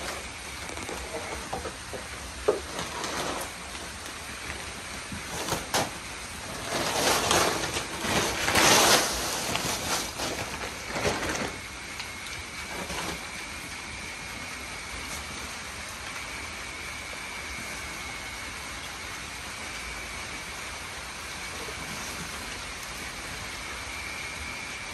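Pigs eating feed pellets off a concrete floor: a steady noisy crunching and rooting, with a louder stretch of jostling bursts about six to eleven seconds in.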